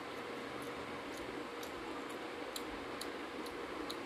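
Eating sounds of rice and fish head curry eaten by hand: small wet clicks, about two a second, over a steady hiss with a faint hum.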